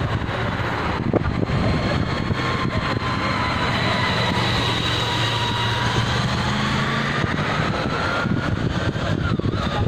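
Wind and road noise from a bicycle being ridden along a road in a large group, with a steady low engine hum from a nearby motor vehicle that fades about seven seconds in.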